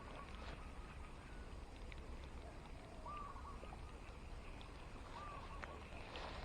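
Faint outdoor ambience with a bird calling at a distance, short arched calls repeated about every two seconds, over a low rumble and a few scattered faint clicks.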